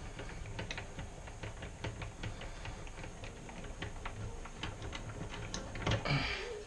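Drill press table height crank being turned to lower the table: a long run of quick, light clicks and ticks from the table's rack-and-pinion gearing, a little louder near the end.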